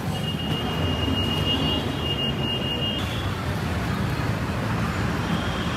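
Street traffic noise: a steady low rumble of passing vehicles. A high, steady two-note tone sounds over it for the first three seconds or so.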